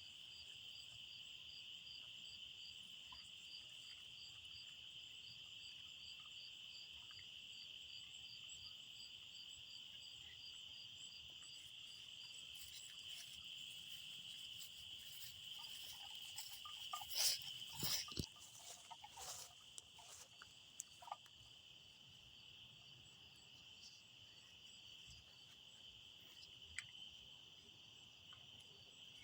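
Night-time insect chorus: one steady high-pitched trill, with a second call pulsing regularly above it. About two-thirds of the way through, a few brief louder rustles and clicks stand out over it.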